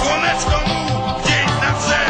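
Rock music with a steady drum beat, laid over the footage as background music.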